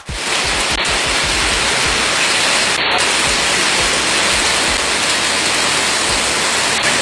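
Heavy hailstorm downpour, hail and rain falling hard: a loud, steady hiss.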